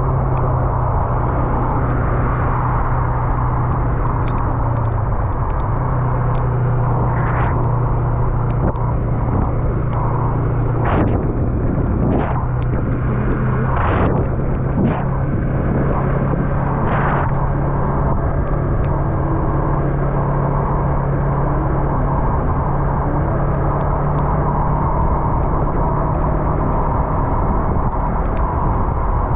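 Yamaha MT-03's parallel-twin engine running at a steady cruise under a constant rush of wind and tyre noise on wet road. Several brief whooshes come and go between about seven and seventeen seconds in.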